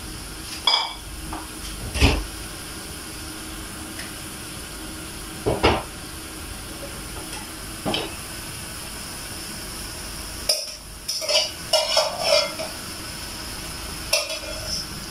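Kitchen utensils and cookware clinking and knocking: several short, separate clatters and a quick run of clinks about two thirds of the way through, over a steady background noise.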